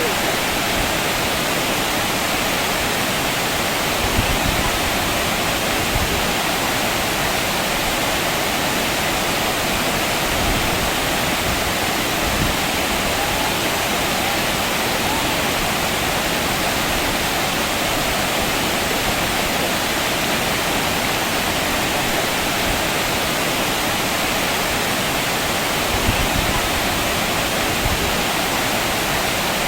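Waterfall, with water pouring and splashing in a steady, unbroken rush of noise at constant loudness.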